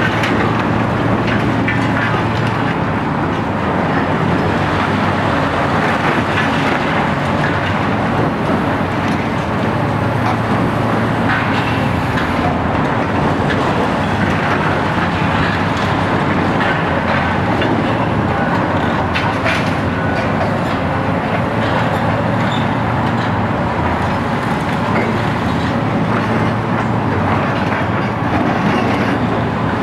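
Diesel engines of demolition excavators, a high-reach machine among them, running steadily. Over them, concrete and rubble crunch and clatter as the machines break and drop debris.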